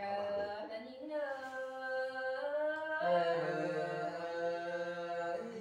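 One voice singing unaccompanied in long, held, slightly wavering notes, moving to a new note about a second in and again about three seconds in.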